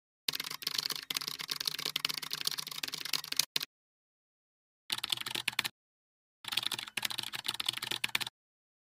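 Rapid computer-keyboard typing sound effect, used for on-screen text being typed out. It comes in three runs of fast clicking: a long one of about three seconds, a short one near the middle, and another near the end, with dead silence between.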